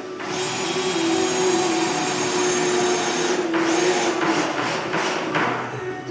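A motor running steadily with a whine, dropping off briefly about three and a half seconds in, then coming back with a few quick pulses.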